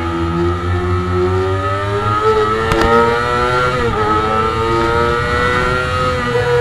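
2009 Kawasaki ZX-6R's inline-four engine under full throttle, heard from on the bike: the pitch climbs steadily, drops briefly as it changes up a gear about four seconds in, then climbs again as the bike keeps accelerating.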